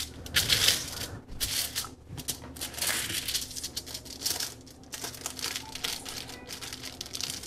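Doubled sheet of aluminium foil crinkling on and off as its edges are folded over and creased by hand.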